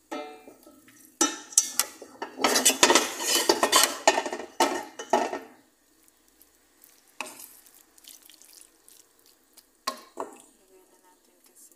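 A wooden spoon stirring and scraping beef and vegetables around a frying pan: a busy run of scrapes in the first half, then only a couple of single strokes later on.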